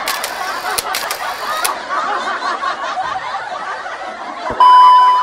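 Canned crowd laughter sound effect, with a few sharp clicks in the first second and a half. A loud, steady high beep cuts in for about half a second near the end.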